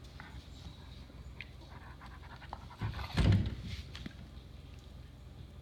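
Bernese Mountain Dog panting in one loud, breathy burst of about a second, about three seconds in, with faint light clicks before and after.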